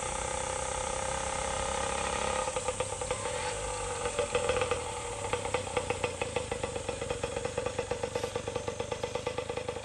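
Honda Dream D-type's single-cylinder two-stroke engine running. It is steady at first, then from about two seconds in settles into a rhythmic beat of separate pulses, a few a second.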